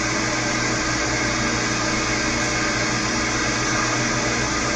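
Milling machine running a Woodruff keyseat cutter as it feeds into a shaft, a steady even whir with a constant hum. The cut is close to its final depth of a little over a quarter inch.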